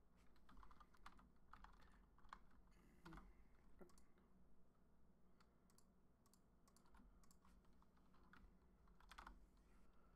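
Faint typing on a computer keyboard: irregular keystroke clicks as code is entered.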